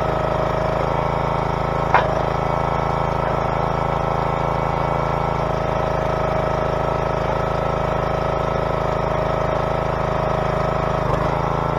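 Engine of the firewood-splitting equipment idling steadily, with a single sharp click about two seconds in.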